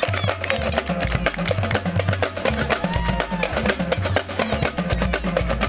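Marching band playing, led by the percussion: a fast, busy drum groove with a low bass line stepping between notes underneath.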